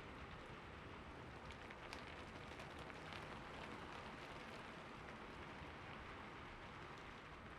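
Steady rain falling on a rooftop, an even patter with scattered sharper drop hits.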